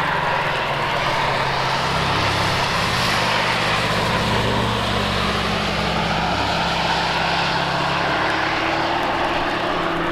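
Cars running past on the track, with engine notes over a steady hiss of tyres and spray. One engine note dips about four seconds in, then rises again.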